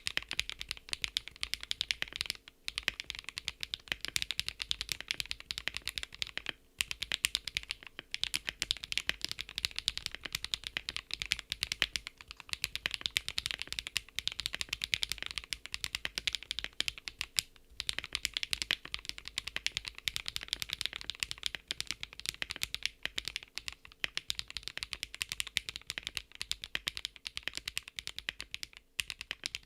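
Mechanical keyboard typing at a fast, steady pace on SWxHMX PEARL linear switches in a gasket-mounted KBDcraft ADAM with a POM plate and stock PBT keycaps: a dense run of key presses, with a few short pauses.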